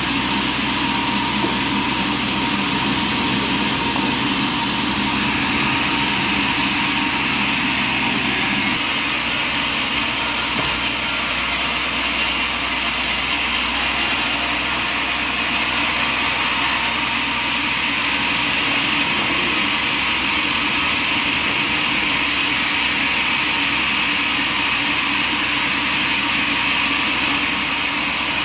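Sawmill running steadily while sawing a white pine log, its engine sound holding even throughout. A higher hiss grows stronger about five seconds in.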